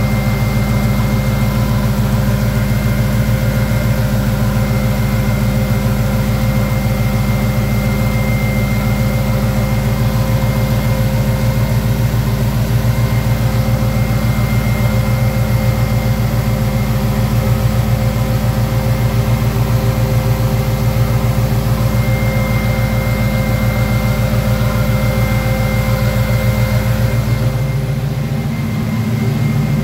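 Car engine idling while driving a bank of high-output alternators on a serpentine belt. It makes a steady drone with a thin, constant high whine on top, and eases off briefly near the end.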